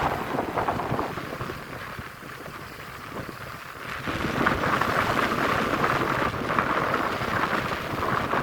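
Wind buffeting the microphone, a rough rushing noise that dips for a few seconds, then grows louder about four seconds in.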